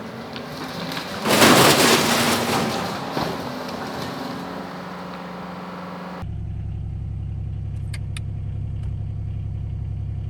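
Diesel engine of heavy equipment running. A loud surge of noise about a second in fades away over a steady engine note. About six seconds in the sound changes abruptly to a steady low engine drone.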